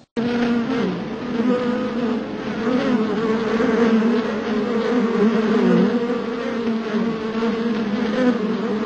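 A steady bee-like buzzing, wavering slightly in pitch, with short dips about a second in and again near six seconds.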